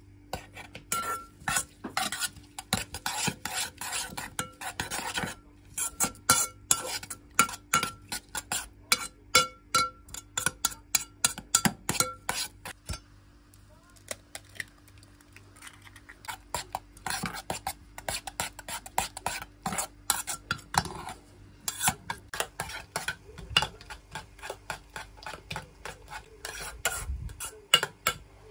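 Metal spoon beating eggs and chopped green onion in an enamel bowl, clinking against the bowl's sides in quick repeated strokes, with a short break about five seconds in and a longer pause near the middle.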